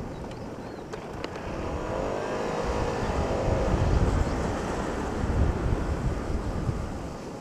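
Motor scooter being ridden: its engine runs under a low wind rumble on the microphone, and the engine note rises and then falls about two seconds in.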